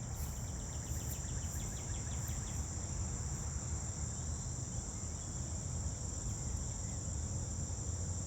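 Steady, high-pitched insect chorus, with a faint rapid ticking trill in the first couple of seconds and a low rumble underneath.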